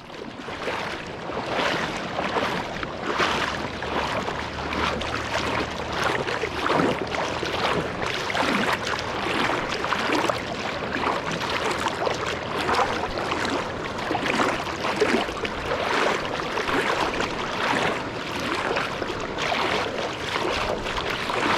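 Hurried footsteps with rustling, a continuous run of irregular steps and scuffs along the riverside.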